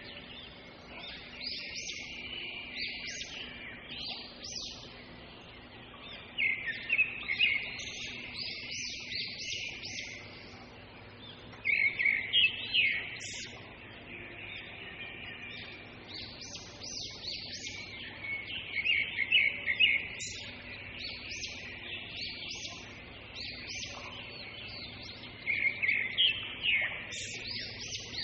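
Birds chirping, a steady chorus that swells every five or six seconds into a louder run of rapid chirps.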